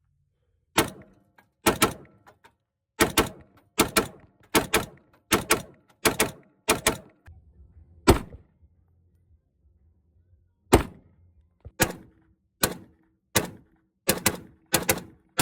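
A 13-inch .308 battle rifle fired unsuppressed through a muzzle brake: about fifteen sharp shots, spaced roughly one a second, with a pause of about two and a half seconds after the ninth.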